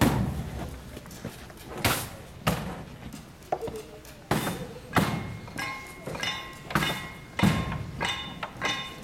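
Found-object drumming on plastic barrels: separate hollow thunks at first, settling from about halfway into a steady beat of roughly one and a half strikes a second, with a ringing pitched tone on the later strikes.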